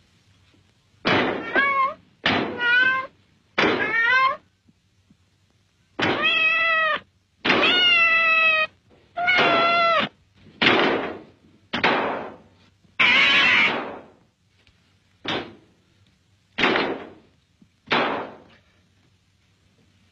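A cat meowing over and over, about a dozen separate meows, some short and some drawn out, with pauses between them.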